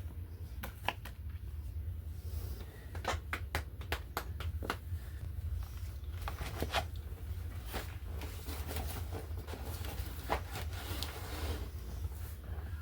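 Paper and craft materials being handled: rustling with scattered light clicks and taps, over a steady low hum.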